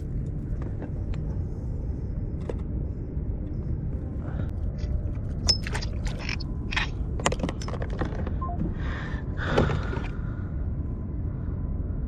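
Wind rumbling on the microphone, with a run of sharp clicks and knocks about halfway through as fishing pliers work a hook free from a small fish at the kayak's side. A brief rush of noise comes just before the end.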